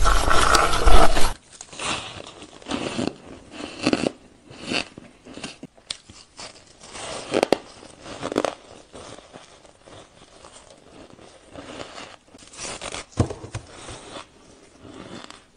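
A person biting and chewing fluffy, dry frozen ice, with separate crisp crunches every second or so. The first second and a half is a louder, denser crunching that stops abruptly.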